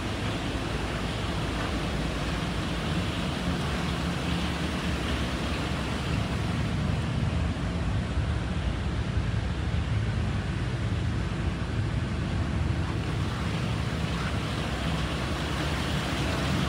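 Steady rushing noise with a low rumble underneath, without any clear pitch, rhythm or sudden knocks.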